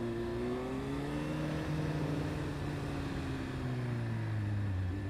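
Honda CB600F Hornet's inline-four engine with an SC-Project aftermarket exhaust, running at low revs as the bike rolls through traffic. The engine note rises gently for a second or two, then falls away as the rider backs off the throttle.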